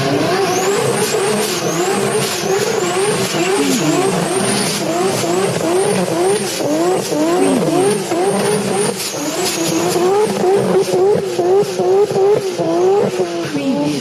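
Race-car engine sound effect, revving up again and again in quick rising sweeps about twice a second, at a steady loudness.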